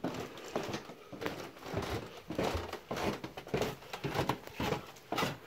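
Footsteps going down an indoor staircase, an irregular run of soft thuds several times a second, with rustling of coats and a backpack.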